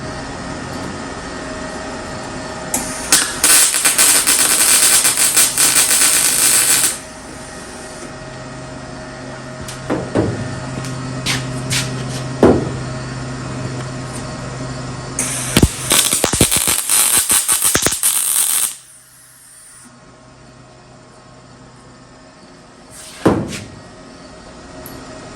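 Welding arc crackling in two bursts of about four and three seconds while a steel quarter panel is stitch-welded in short runs, with a steady hum between the bursts and a few sharp knocks.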